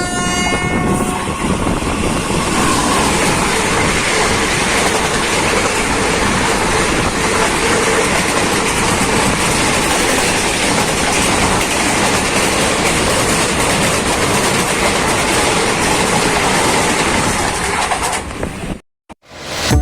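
Passenger train running on the rails, a loud, steady rumble and rattle of wheels and coaches; a train horn ends about half a second in. The sound cuts off abruptly near the end.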